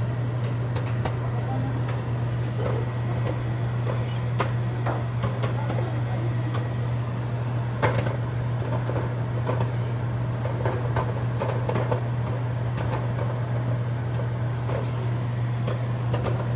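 Microwave oven running with a steady low hum while popcorn kernels pop inside it, irregular sharp pops scattered throughout, one louder pop about eight seconds in.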